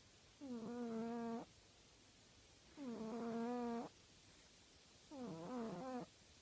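An ageing pet snoring: three long snores of about a second each, roughly every two and a half seconds. Each is a steady pitched tone, and the last one wavers in pitch.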